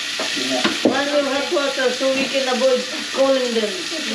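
Kitchen faucet running a steady stream into a stainless steel sink bowl and down its drain, a continuous hiss, with people talking over it.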